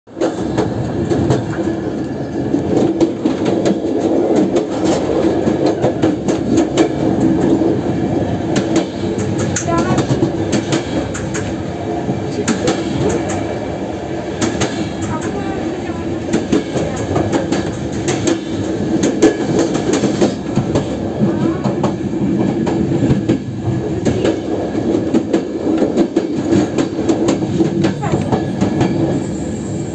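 A passenger train's carriages rolling into a station. The wheels clatter steadily over the rail joints, with a brief wheel squeal a few times.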